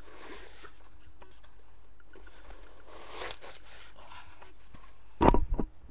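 Soft rustling and crinkling of packing inserts being pulled out of new sneakers. Near the end come two loud thumps in quick succession, the loudest sound.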